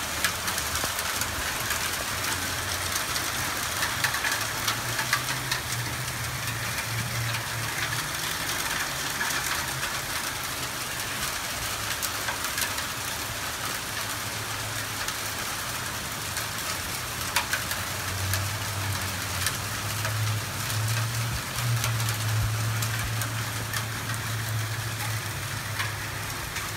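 Heavy rain pouring down, with scattered sharp ticks of hailstones striking hard surfaces. A low steady hum runs underneath and grows louder about two-thirds of the way through.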